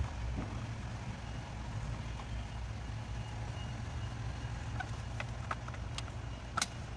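Steady low engine rumble, with a few light clicks and taps of plastic trim being fitted, bunched near the end; the last click is the loudest.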